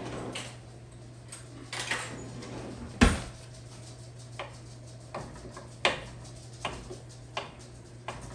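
Kitchen knife knocking on a bamboo cutting board as sticks of butter are sliced into chunks, a sharp knock about once a second, the loudest about three seconds in. A steady low hum runs underneath.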